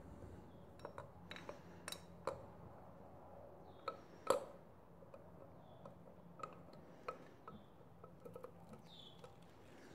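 Faint, scattered clicks and light metal clinks of an oiled camshaft being handled and fitted into a Kawasaki Z125 Pro cylinder head, the loudest clink about four seconds in.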